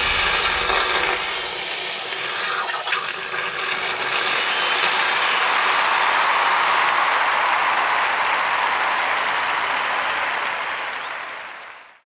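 High-pitched whine of a dental high-speed drill, wavering up and down in pitch over a steady hiss. The whine stops about eight seconds in and the hiss fades out near the end.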